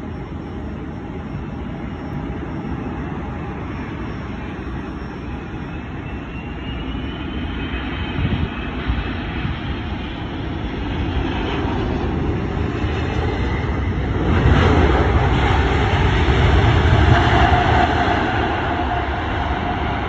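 Airbus A380's four jet engines during a landing and rollout. The steady engine noise grows, then surges to its loudest a little past the middle as the engines spool up for reverse thrust, and eases off near the end.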